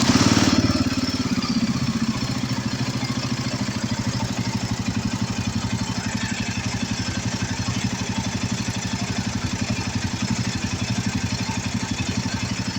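Royal Enfield Himalayan 450's single-cylinder engine just after starting, a little louder for the first second or so and then settling into a steady idle.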